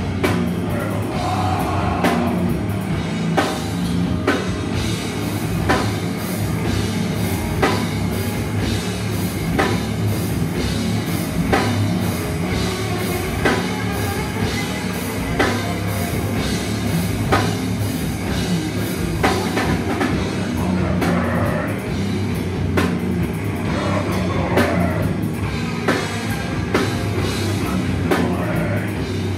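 Metal band playing live through a PA: pounding drum kit with distorted electric guitars and bass, loud and dense, with sharp accents about every two seconds.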